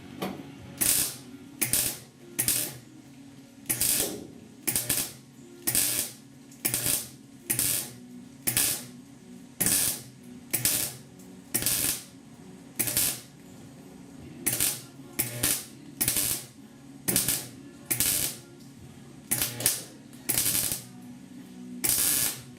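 Welder laying short stitch welds on a thin sheet-metal roof patch panel: quick bursts of arc crackle, each well under a second, about one or two a second, with brief pauses between. A steady low hum runs underneath.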